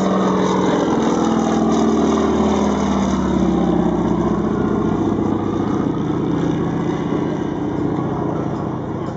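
Pratt & Whitney R-1340 radial engine of a North American T-6 rebuilt as an NA-68 look-alike, droning as the aircraft flies a low pass. Its pitch drops as it goes by, then it holds lower and fades a little as the plane flies away.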